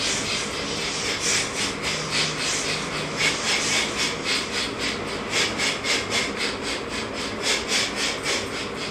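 Rhythmic swishing and rubbing, about four strokes a second, from a man's fast, repeated standing yoga twist with his arms overhead.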